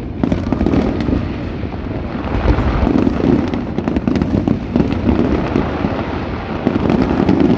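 Fireworks display going off continuously: a dense run of booms and rapid crackles layered over a steady low rumble.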